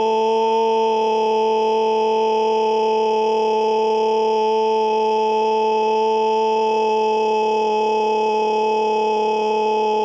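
A loud scream held at one steady pitch with no break or breath.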